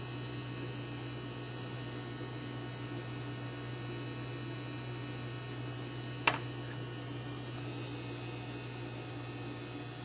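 Steady low electrical-sounding hum, with one sharp click about six seconds in.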